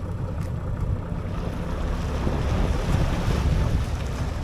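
A fishing boat's engine running with a steady low drone, under wind buffeting the microphone and the wash of the sea, which swells about halfway through.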